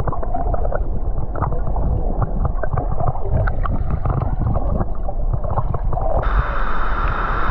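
Muffled gurgling and bubbling of water stirred by a swimmer, heard through a waterproof camera's microphone held underwater, with many small clicks and a low rumble. About six seconds in, the microphone breaks the surface and the open sound of rushing water returns.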